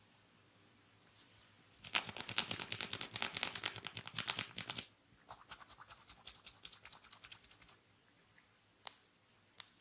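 Hands rubbing and scratching fast through hair in a head massage: a loud run of quick scratchy strokes for about three seconds, a softer run after it, then two single clicks near the end.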